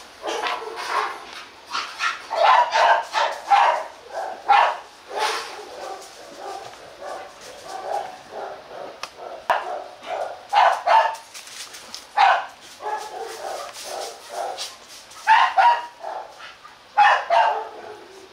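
Hmong bobtail dogs barking over and over in short, sharp barks, at times several in quick succession and at times singly, with the loudest bunches about a quarter, halfway and near the end.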